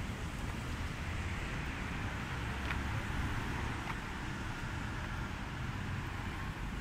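Steady outdoor city ambience: the hum of distant road traffic, with a low rumble of wind on the phone's microphone.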